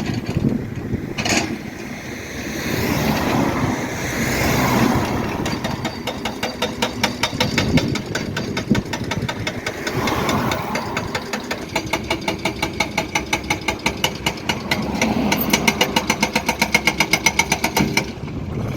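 A machine running with a rapid, even knocking of about five knocks a second, over a rumble that swells and fades.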